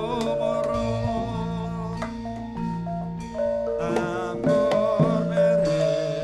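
Javanese gamelan music: struck metallophones play a stepping melody of held notes over drum strokes, with a wavering melodic line joining in the middle.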